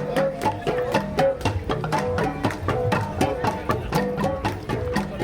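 Cordillera gong ensemble playing: flat bronze gongs (gangsa) struck in a fast, even beat, many strikes a second, their ringing notes interlocking in a repeating pattern.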